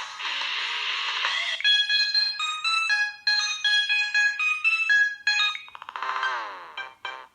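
Samsung Galaxy Y ringtones: the end of a hissy electronic tune, then about a second and a half in a new ringtone of quick, bright, high notes, ending in sweeping gliding tones and a few short chords that cut off suddenly.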